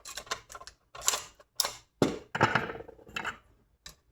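RCBS hand priming tool at work: a run of sharp metallic clicks and clatters as large rifle primers are pressed into 30-30 brass cases and the cases are handled.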